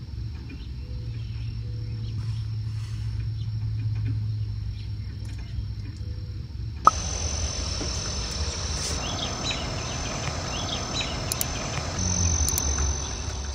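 Outdoor ambience: a steady, high-pitched insect drone over a low rumble. About seven seconds in there is a sharp click, the sound turns brighter and fuller, and a few faint chirps follow.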